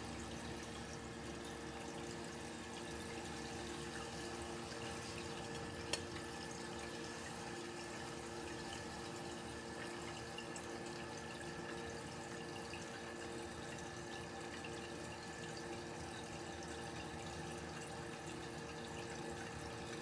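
Steady background hiss with a constant low hum, and one sharp click about six seconds in.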